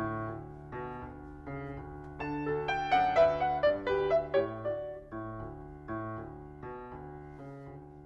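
Piano music: a slow melody of single notes over held low notes, with a quicker, louder run of notes in the middle.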